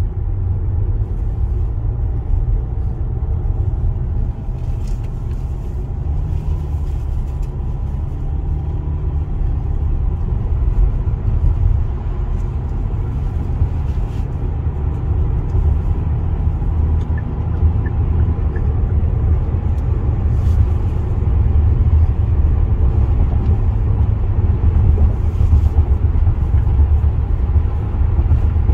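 Steady low rumble of a car's engine and tyres heard from inside the cabin while driving at speed, growing a little louder in the last third.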